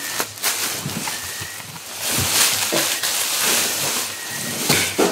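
Plastic packaging rustling and crinkling as wrapped items are lifted and moved, with a few sharp clicks.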